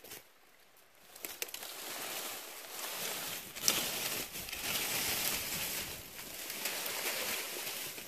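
Dry brambles, twigs and dead leaves rustling and crackling as they are pulled and trampled, with a few sharp snaps, the loudest about three and a half seconds in.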